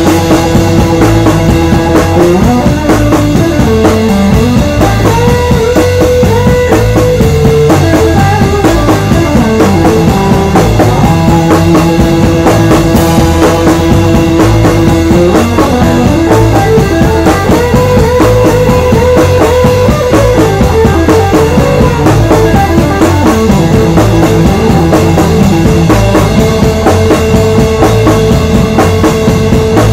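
Instrumental rock band music: a drum kit, electric guitar, bass and keyboards playing a steady groove, with long held melody notes over the drums.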